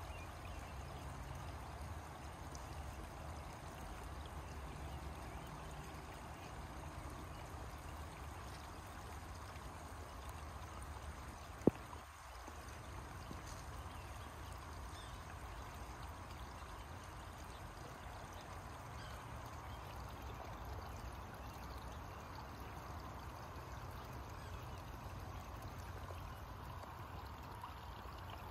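Steady, faint outdoor background noise, a low rumble under an even hiss, with a single sharp click about twelve seconds in.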